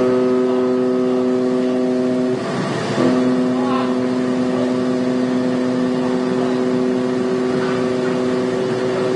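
Ship's horn sounding a long steady blast. It breaks off after about two seconds and sounds again for about six seconds more.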